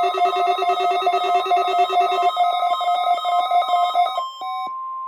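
Electronic alert tones from a weather radio test broadcast. A rapid multi-tone trill, like a telephone ringer, stops about four seconds in, while a single steady tone sounds beneath it and carries on to the end.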